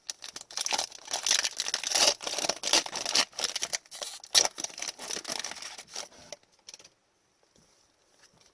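Hockey card pack handling: a foil pack wrapper crinkling and tearing while cards are rubbed and slid against each other. The busy crinkling stops about seven seconds in.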